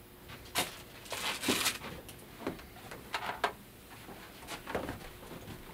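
A few soft, scattered knocks and rustling noises about a second apart, with a brief hiss about a second and a half in, in a quiet small room.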